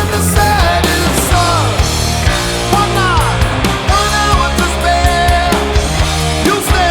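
Loud rock music: a full band with distorted electric guitars, bass and drums, and a lead line bending in pitch over it.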